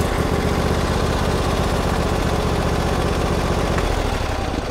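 Husqvarna GTH52 XLS garden tractor's Briggs & Stratton engine, just started on the key and idling steadily. Near the end it is switched off and winds down. It starts and stops cleanly on the ignition switch.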